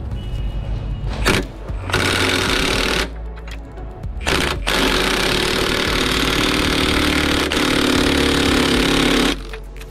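Milwaukee 2967-20 half-inch cordless impact wrench hammering in bursts on a rusted rear shock-absorber bolt of a semi truck. A brief blip about a second in and a one-second burst at two seconds are followed by a short blip and a long run of about four and a half seconds that cuts off near the end.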